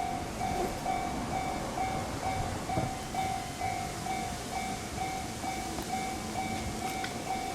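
Railroad crossing's electronic warning bell clanging steadily, a little over twice a second, over the rumble of a passing train.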